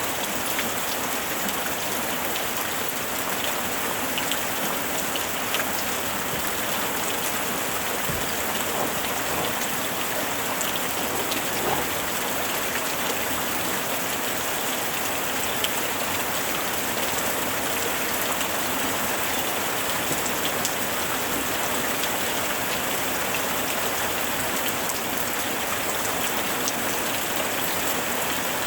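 Steady rain falling on a surface, a constant hiss with scattered individual drops ticking through it.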